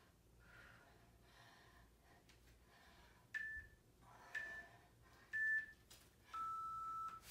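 Interval workout timer counting down the last seconds of an interval: three short high beeps about a second apart, then one longer, lower beep marking the end of the interval.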